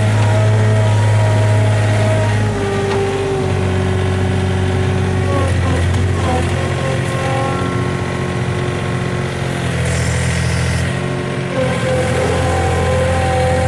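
Farm machine's engine running steadily at a low hum, its speed changing a few times: dropping about two and a half seconds in and picking up again near the end.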